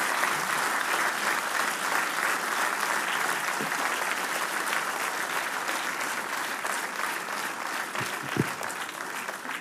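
Large seated audience applauding steadily, slowly tapering off near the end.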